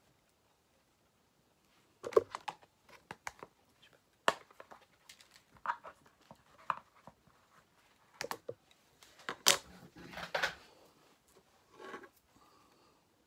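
Craft tools and paper handled on a tabletop: scattered sharp taps and knocks with some paper rustling, starting about two seconds in, the loudest knocks near the end.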